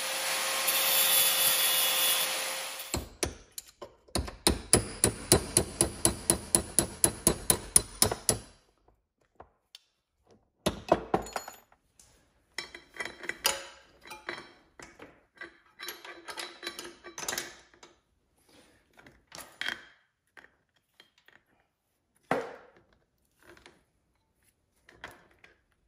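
Angle grinder grinding down a rivet head on a motorcycle O-ring drive chain, spinning down about three seconds in. Then a run of quick, even hammer blows, about three a second, punching the chain pin out. After that come scattered light metallic clinks as the chain is handled.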